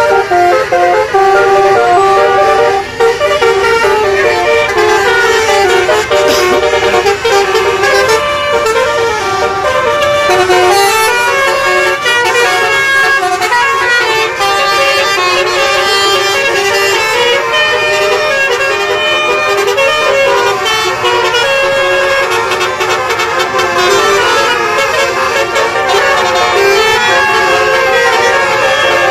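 A bus's basuri telolet horn, a multi-note musical air horn, playing a tune note after note without a pause.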